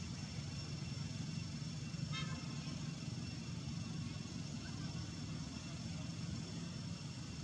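Steady low engine-like hum, with faint steady high tones above it and a short high squeak about two seconds in.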